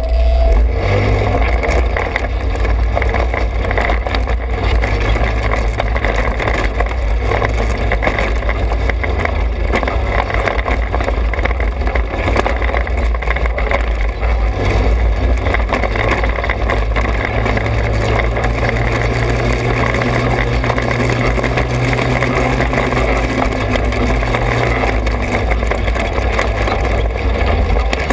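Engine of a Trailmaster 200 XRX off-road kart running steadily under way on a dirt trail, with a heavy low rumble. Its note rises a little about two-thirds through and drops back near the end.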